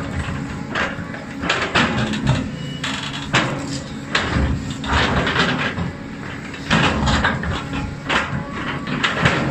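Cat 320D excavator's diesel engine running under load while its bucket digs into rocky soil, with irregular grinding, scraping and crunching of stones against the steel bucket.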